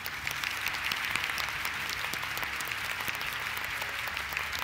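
Steady applause from many people clapping together, a dense patter of hand claps.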